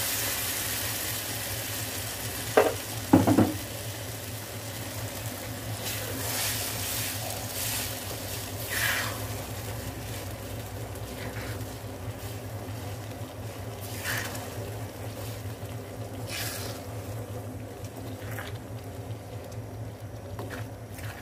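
Tomato sauce sizzling in a nonstick frying pan just after it has gone in on top of fried meat and onions, the sizzle fading over the first few seconds. It is being stirred with a silicone spatula: two sharp knocks about three seconds in, then short scraping strokes every two to three seconds.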